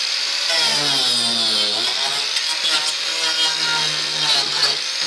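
Angle grinder with a Graff Speedcutter chain-toothed wood-carving disc running and cutting into wood. The motor's pitch sags as the blade bites, about half a second in, then recovers by about two seconds in and holds steady under light load.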